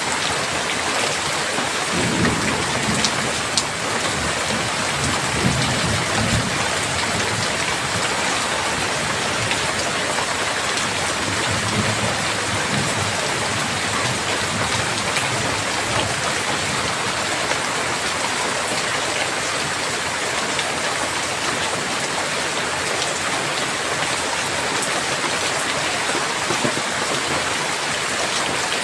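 Heavy rain falling steadily in a dense hiss, with low thunder rumbling about two seconds in and rolling for several seconds, then a weaker rumble near the middle.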